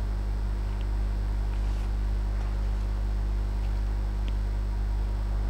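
Steady low electrical hum, like mains hum on the recording, with a couple of faint ticks.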